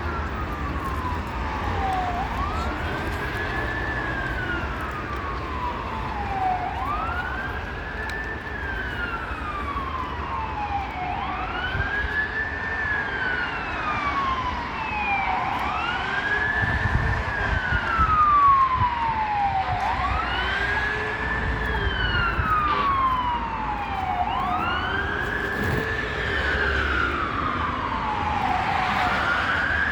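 Emergency vehicle siren wailing over city traffic. Each cycle rises quickly and then falls slowly, about every four seconds.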